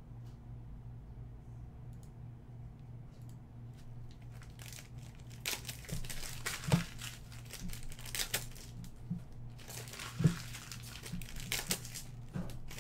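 Trading card pack wrapper being torn open and crinkled by hand, with the cards handled and knocked on the table. It starts about five seconds in, after a few seconds of faint steady hum.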